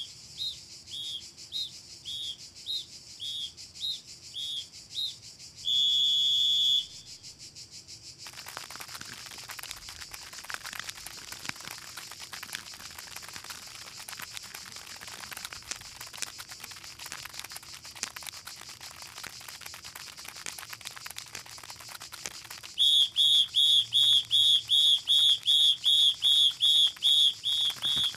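Cartoon sound effects of high-pitched whistle-like chirps. Spaced chirps come first, then one longer held whistle about six seconds in, then a stretch of steady hiss. Near the end comes a fast, loud run of chirps, about three a second.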